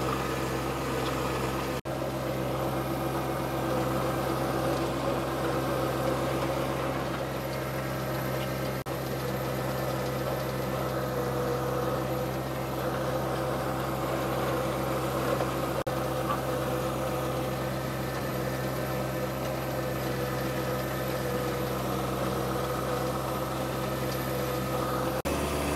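John Deere 1025R compact tractor's three-cylinder diesel engine running steadily under load as it pushes a front-mounted land leveler across gravel, with a few brief dropouts.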